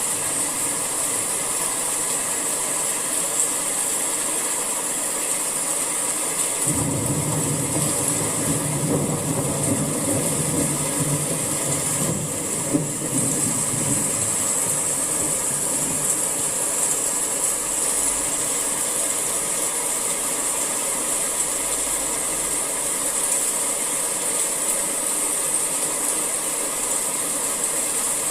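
Summer rain falling steadily, a constant hiss. A lower rumble cuts in suddenly about seven seconds in and fades away over the next several seconds.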